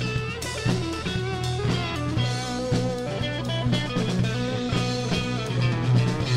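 Live rock band playing an electric guitar solo, with notes bending in pitch over a drum kit.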